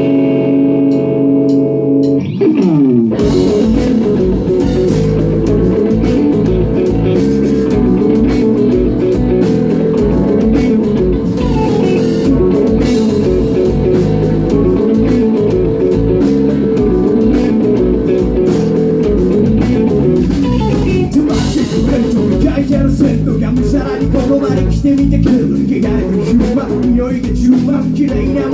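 Rock-style music with guitar and drums: a held chord slides down in pitch, then the full band with drums comes in about three seconds in and plays steadily.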